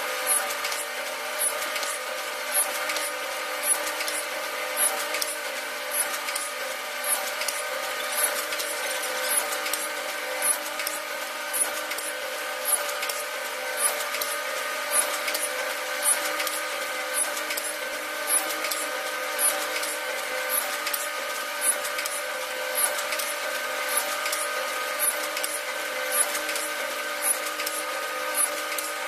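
YIWEI YFT100 stretcher bar tenoning machine running, a steady mechanical whine from its cutters and motors, with a sharp click about once a second as it works through the stacked wooden bars.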